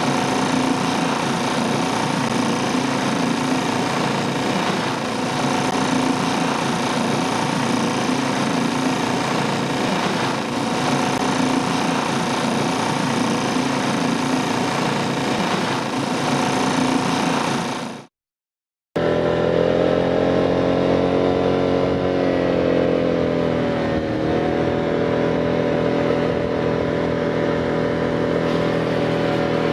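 A yacht's engine runs steadily while motoring, then cuts off suddenly about 18 seconds in. After a second of silence a scooter engine runs as it is ridden, its pitch dipping briefly and then picking up again.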